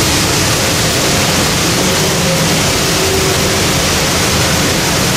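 Steel wheels of passing railroad passenger cars rolling on the rails close by, a steady rushing rumble.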